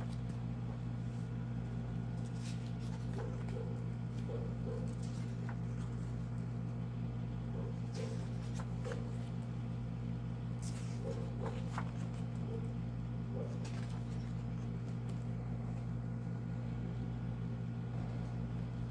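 A steady low hum throughout, with soft paper rustles and light taps every few seconds as the pages of a softcover book are handled and turned.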